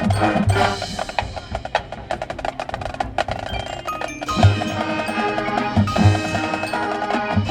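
High school marching band playing its field show. A light passage of rapid percussion strokes gives way, about four and a half seconds in, to the full band entering with sustained chords over regular bass drum hits.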